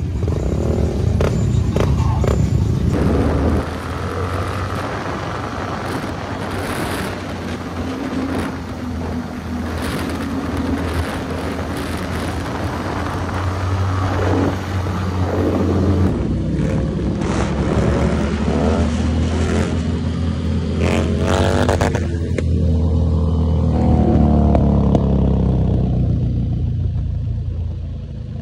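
Motorcycle engines running and revving, several bikes at once, with repeated revs rising and falling in pitch; the revving is loudest a little before the end.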